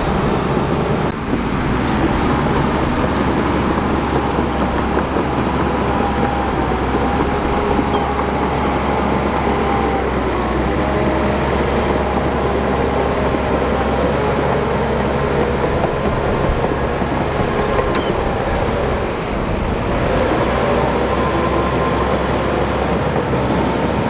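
Shantui crawler bulldozer's diesel engine running steadily under load, with the rattle of its tracks, as the blade pushes a pile of soil.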